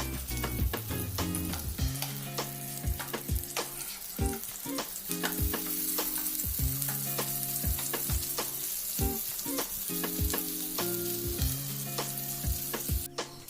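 Pea-and-potato patties shallow-frying in hot oil with a steady sizzle, and sharp clicks of a spatula on the pan as they are turned. Soft background music with held notes runs underneath. The sizzle stops shortly before the end.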